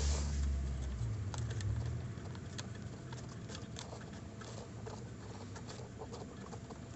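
Faint, scattered small clicks and scrapes from the traverse knob and gearing of a 1/12-scale model M3 anti-tank gun being turned by hand, swinging the barrel left and right. A low rumble of hand-handling noise sits under the first second or so.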